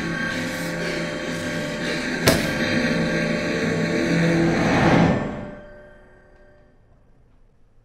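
A dense, steady droning soundtrack of layered held tones, with one sharp hit a little over two seconds in. It fades out about five seconds in, leaving only a faint low background.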